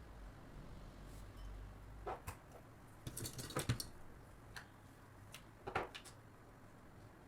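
Light clicks and knocks of objects being handled on a table: a pair about two seconds in, a quick cluster of taps around the middle, and a few single clicks later.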